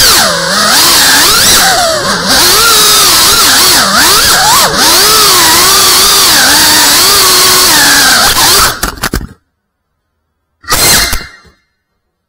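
FPV quadcopter's motors and propellers whining, the pitch rising and falling constantly with the throttle. The sound cuts off abruptly about nine seconds in, followed by two short bursts about two seconds apart.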